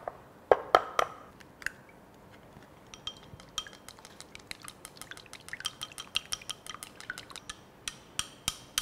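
An egg cracked into a small glass bowl with a few sharp taps, then beaten with wooden chopsticks that click quickly against the glass, several clicks a second, from about three seconds in.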